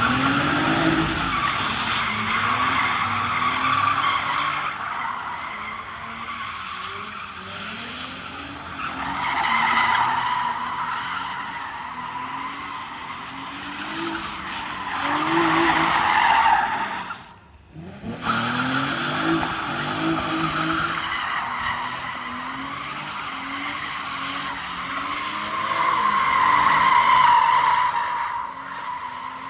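A car drifting: the engine revs up and down over and over while the tyres squeal. The squeal swells loudest three times, about a third of the way in, past the middle and near the end, and the sound drops out briefly just past the middle.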